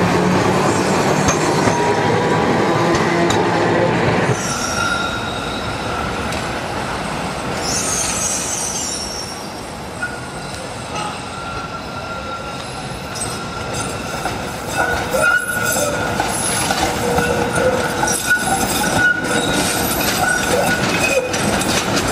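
A Peter Witt tram running past close by with a low motor hum. After an abrupt change about four seconds in, trams round curved track: the steel wheels squeal in long, high, steady tones, with sharp clicks as the wheels cross rail joints and crossings.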